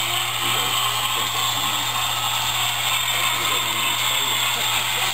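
HO scale model steam locomotive and train running on the track, a steady mechanical whirring and clattering, with faint background voices.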